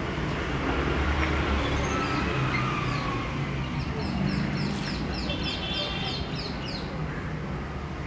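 Rose-ringed parakeet calling in a rapid series of short, shrill, falling chirps, about three a second, starting about four seconds in and lasting about three seconds, over a steady low rumble of traffic.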